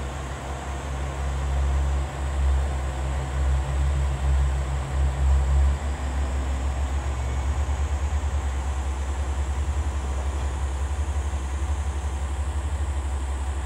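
Diesel engines of red KiHa 47 railcars. For the first six seconds one railcar's diesel runs loud and uneven as it pulls out. After that the steady, even throb of another railcar's diesel idling at the platform takes over.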